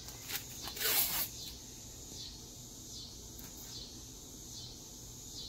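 Painter's tape being pulled off the roll in a few short rips, the longest and loudest about a second in. After that a faint short chirp repeats about once a second over a quiet outdoor background.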